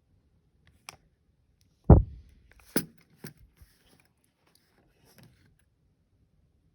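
Handling noises at a work table: a single dull thump about two seconds in, like something set down or bumped, with a few sharp clicks and light taps around it.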